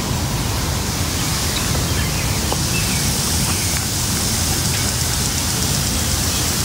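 Lawn sprinklers hissing as they spray water, the hiss growing stronger about halfway through, over a steady low rumble. A few faint bird chirps come through.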